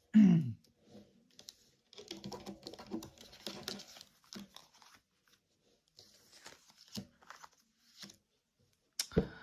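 Tarot cards being handled and drawn from the deck: papery rustling, sliding and light clicks, with a sharp slap of a card about nine seconds in.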